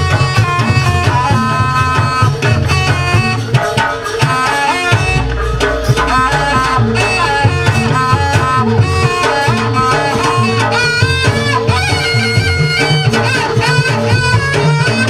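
Loud traditional Banyuwangi barong music: a reedy slompret (double-reed shawm) plays a busy, stepping melody over continuous drumming and a steady held tone, with a deep low note sounding about five seconds in.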